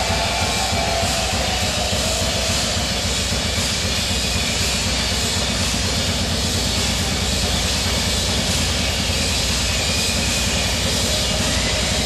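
Drum kit played fast in a live drum solo: an unbroken wash of cymbals over rapid, steady bass drum strokes, loud and dense throughout.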